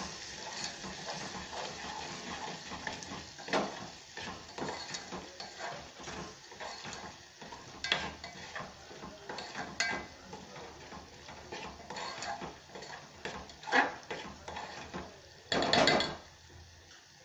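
Metal spoon stirring and scraping a thick tomato-onion masala in an aluminium pot, with irregular clinks of the spoon against the pot and a louder scrape near the end. A faint sizzle underneath as the masala cooks in oil with its spice powders.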